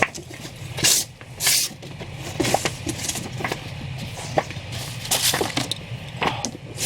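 Comic books being handled and sorted out of a shipping box: a run of short paper rustles, swishes and soft slaps as issues are pulled out and stacked, over a steady low hum.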